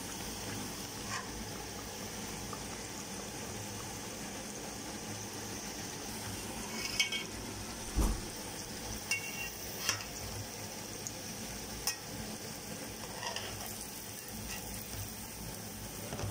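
Pork belly pieces deep-frying in hot oil in an aluminium pot, a steady sizzle. Between about seven and thirteen seconds in come half a dozen short knocks and metallic clinks against the pot as the pieces are stirred and turned.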